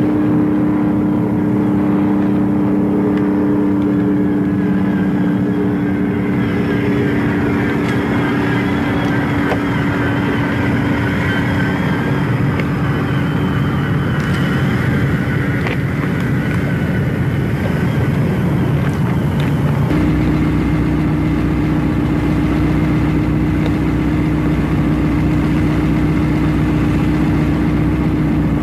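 A motor vehicle engine running steadily and close by, its pitch shifting to a lower, steadier tone about twenty seconds in.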